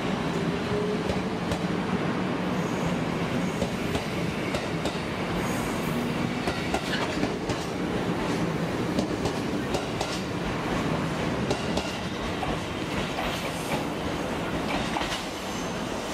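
Abukuma Railway 8100 series electric train running along the platform, its wheels clicking over rail joints above a steady running hum, with some wheel squeal.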